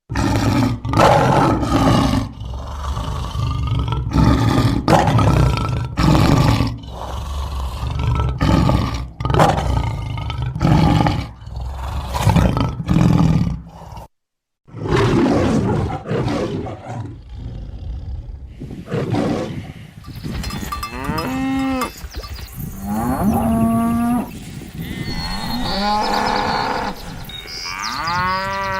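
A series of loud calls from large animals, with a short break about halfway through. The later calls rise and fall in pitch.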